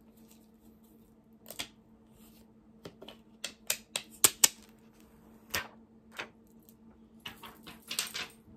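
Eyeshadow palette being handled: irregular sharp clicks and crackles of cardboard and paper as the protective paper is pulled off its mirror, with a quick run of clicks near the end.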